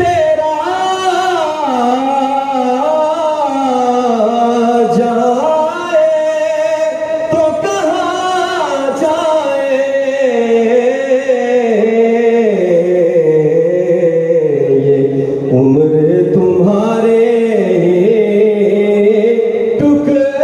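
A man singing a naat (Urdu devotional poem), drawing out long held notes that glide up and down in a melismatic line.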